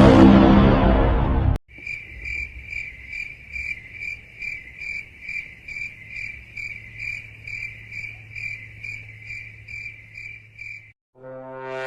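A loud rushing noise cuts off about a second and a half in. Then crickets chirp in an even rhythm, about two chirps a second, over a faint low hum: the stock 'awkward silence' cricket sound effect.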